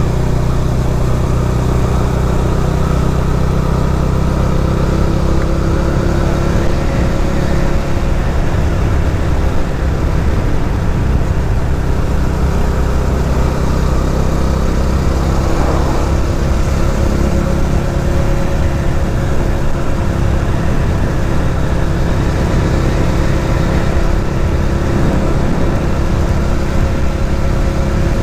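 Motorcycle engine running at a steady cruise while riding, under a heavy low rumble of wind on the microphone.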